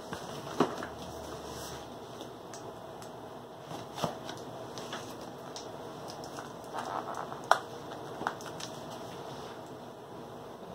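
Cardboard box packaging being handled and opened by hand: scattered sharp clicks and snaps with a brief crinkling rustle, the loudest snap about three-quarters of the way through.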